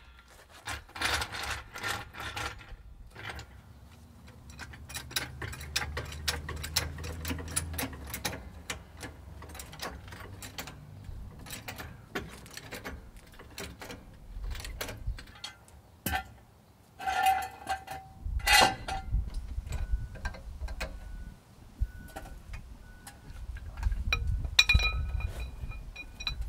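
Hydraulic floor jack being worked under a pickup, its handle and pump mechanism clicking and knocking over and over as the front of the truck is lifted, with a few louder metal clanks past the middle.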